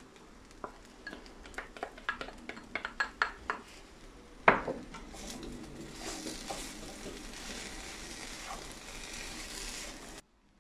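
A run of light taps as chopped spring onions are tipped from a small glass bowl into a pan, and one sharper knock about four and a half seconds in. Then a plastic spatula stirs and scrapes couscous around a non-stick wok, with a faint sizzle.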